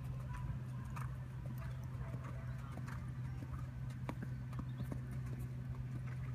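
Horse's hoofbeats on sand arena footing as it trots, heard as soft, scattered thuds and clicks over a steady low hum.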